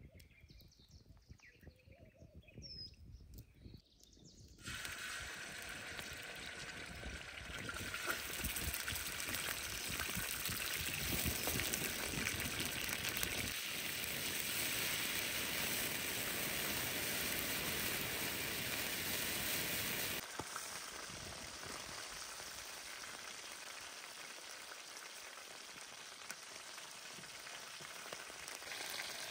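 Food frying in hot oil in a shallow steel pan over a wood fire. A loud, steady sizzle starts suddenly about five seconds in and drops to a lower level about two-thirds of the way through. Before it there is only faint outdoor quiet with one short bird chirp.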